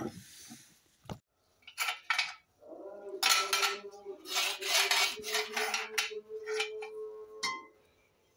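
Steel parts of a homemade lathe knocking, clinking and scraping against each other as they are handled on the welded steel bed: a few separate knocks, then a busy run of clinks and scrapes over a steady ringing tone that stops shortly before the end.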